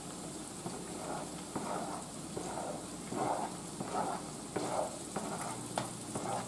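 A spoon scraping chopped bell pepper and celery off a flexible plastic cutting board into a skillet, in a string of short scraping strokes, over onions sizzling in the pan.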